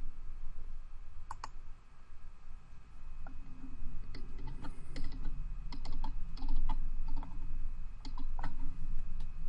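Clicks of a computer mouse and keyboard, coming singly and in small quick clusters a second or two apart.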